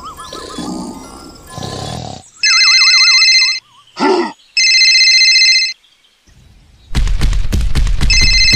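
Cartoon sound effects: a rhythmic snoring loop with a wavering whistle, then a phone ringtone ringing in two bursts with a short grunt between them. Near the end a loud, rough rumble starts and the ringtone sounds again over it.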